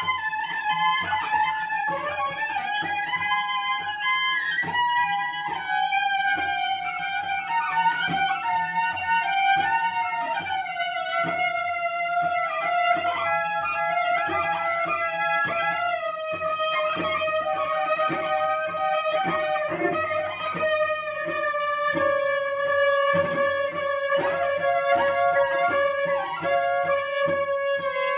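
Cello bowed high on the strings: long held notes that slowly step down in pitch, with many short clicks and taps throughout.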